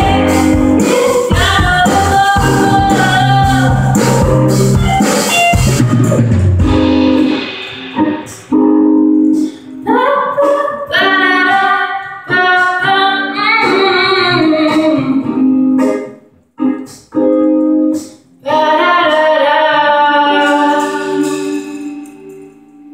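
Live pop-rock band with female vocals. The full band with drums drops out about seven seconds in, leaving the singing voices nearly alone in short phrases with brief pauses, and the song ends on a held note that fades out.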